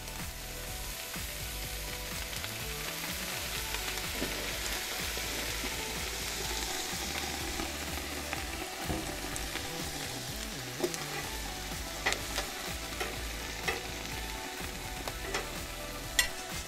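Water squirted onto vegetables on a hot Blackstone steel flat-top griddle, sizzling hard as it turns to steam for steaming the vegetables under a basting dome. The hiss swells over the first several seconds and then eases, with a few sharp pops in the later seconds.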